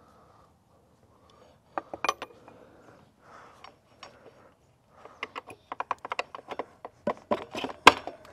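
Small metallic clicks and knocks as the KTM 790's front wheel, axle and wheel spacers are worked into place between the forks: two sharp clicks about two seconds in, then a quick run of many clicks over the last three seconds, the loudest just before the end.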